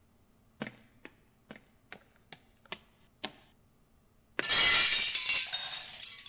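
Seven quick footsteps about half a second apart, then a large window shattering about four and a half seconds in, the loudest sound, followed by shards of glass tinkling down.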